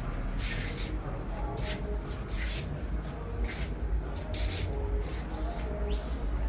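Wind buffeting the microphone in a steady low rumble, with a short hiss about once a second.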